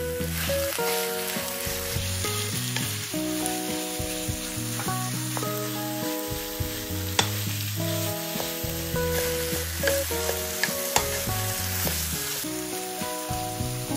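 Food sizzling in a frying pan while it is stirred, with a few sharp clicks of the utensil against the pan, over soft background music of sustained notes.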